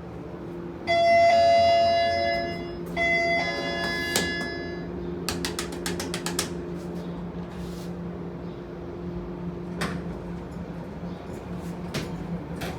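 Elevator alarm bell rung twice from the car's alarm button, each ring lasting about a second and a half. A quick run of clicks follows, over a steady low hum.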